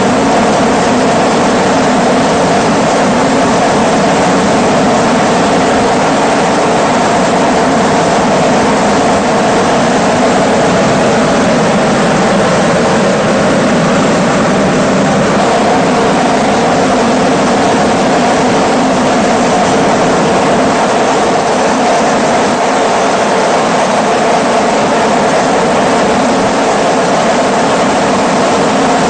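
Steady, loud drone of an aircraft's engine, heard from the aircraft filming from the air, unbroken and unchanging throughout.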